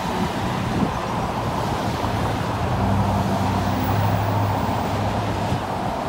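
Steady road traffic rushing past, mixed with wind on the microphone; a low hum swells in the middle and fades again.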